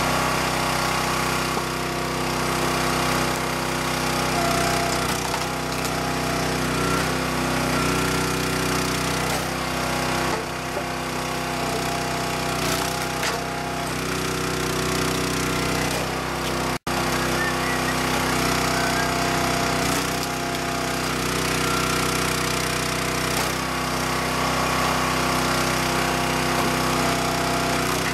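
Small gas engine of a Cub Cadet hydraulic log splitter running steadily, its note shifting several times as logs are split under load.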